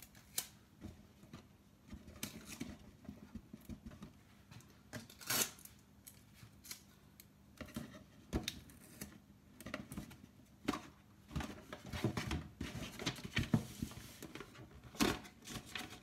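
Sellotape being pulled off its roll and torn, and paper being pressed and rustled onto a cardboard box: irregular sharp clicks, rips and crinkles, with a longer hissing tear in the second half.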